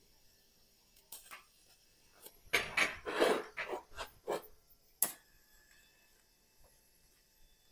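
Metallic clinks and clatter on a steel welding bench while TIG welding: a few light clicks, then a dense run of clinks in the middle and one sharp click about five seconds in.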